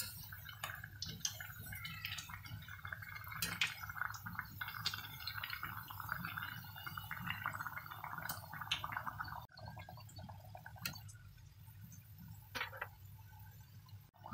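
Hot oil sizzling and crackling around two pieces of cheese-filled pişi dough deep-frying in a pot, a dense fizz of small pops that thins out somewhat after about nine seconds.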